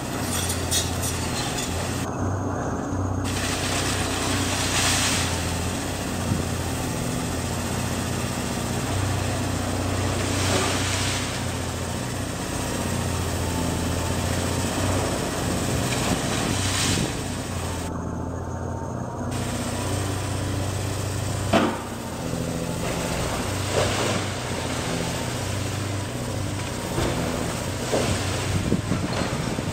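CAT 330D hydraulic excavator's diesel engine running, its pitch and load shifting as the machine works with a demolition attachment, with a faint wavering whine over it. Sharp cracks and crashes of breaking masonry and falling debris come through, the loudest about two-thirds of the way in and several more near the end.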